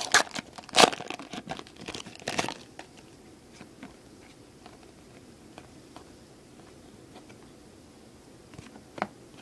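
Crinkling and rustling of foil card-pack wrappers and trading cards being handled, busiest in the first two and a half seconds, then only faint occasional clicks of cards.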